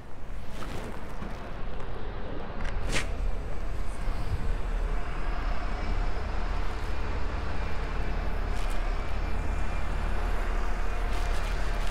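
Steady low rumble of road traffic and buses on a wet city street, with a sharp click about three seconds in and a couple of fainter clicks later.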